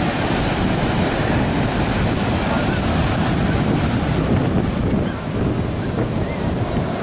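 Sea surf washing onto a sandy beach, with wind buffeting the microphone.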